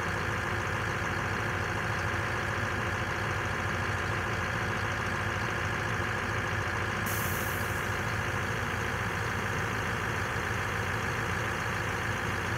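Scania R560's V8 diesel engine running steadily at idle while the hooklift arm is worked hydraulically. A brief hiss cuts in about halfway through.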